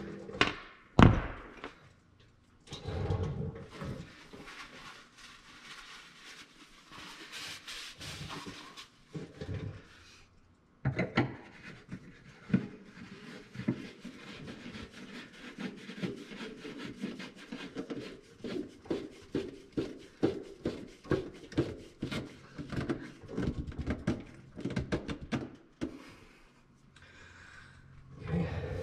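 Clicks and knocks of tools and metal parts being handled while a boat's trim tab actuator is fitted: a sharp knock about a second in, then a long run of quick, uneven clicks from about eleven seconds in until near the end.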